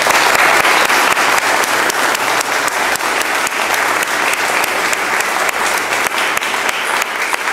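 Audience applauding, a dense steady clapping that holds at full strength throughout.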